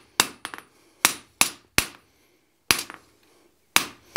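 Blacksmith's hammer striking a steel bar on the anvil to chamfer its edge: about eight sharp blows at uneven spacing, some in quick pairs, with a short ring after several of them and a pause of about a second after the middle.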